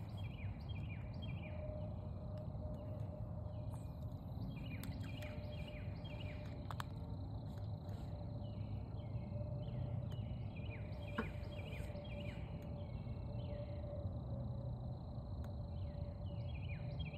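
A chorus of small animals: many short, high calls repeating in quick runs, over a steady low rumble. A couple of brief clicks come about seven and eleven seconds in.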